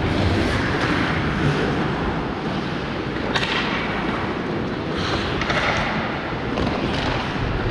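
Ice-rink hockey play in a large echoing arena: a steady wash of skates and play noise, broken by several sharp clacks of sticks and pucks, the clearest about three and a half seconds in and a few more near the end.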